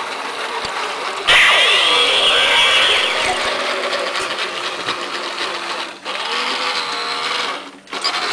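Small electric drive motor of a remote-controlled toy Dalek whirring as it rolls along, stopping briefly twice.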